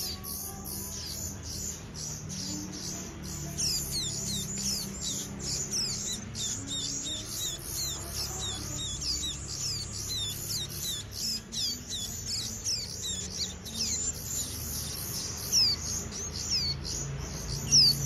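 Nestling finches begging with a rapid run of short, high chirps, several a second without pause, over soft background music.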